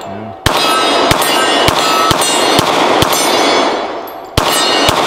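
Two shots from a Glock 23 pistol in .40 S&W, about four seconds apart, the first about half a second in. Each is followed by the ringing of a struck steel target and a long echo dying away.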